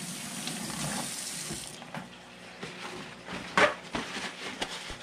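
Kitchen faucet running as hands are rinsed under it, shut off suddenly about two seconds in. Then paper towel crinkles as the hands are dried, with one sharp, loud rustle in the middle.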